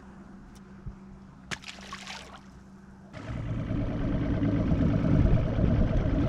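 A few light knocks, then about three seconds in a boat's outboard motor comes in suddenly and runs steadily with a low drone.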